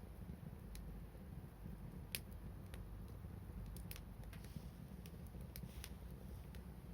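Wood fire crackling: scattered sharp pops at irregular intervals, the loudest about two seconds in, over a faint low rumble.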